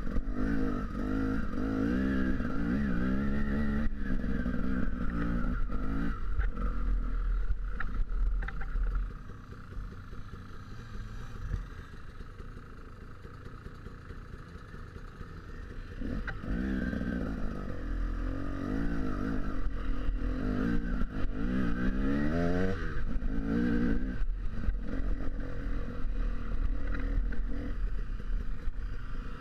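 Dirt bike engine revving up and down as it is ridden over rough ground, with rattle and scraping from the bike. About 9 seconds in the engine drops to a quieter, steadier note, and the revving picks up again about 16 seconds in.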